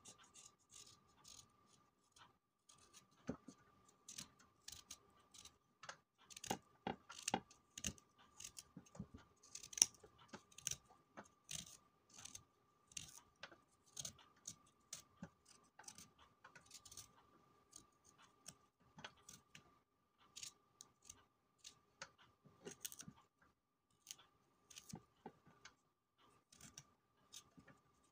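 Small knife scraping the skin off a fresh dandelion root: a faint run of short, irregular scrapes, sometimes several a second.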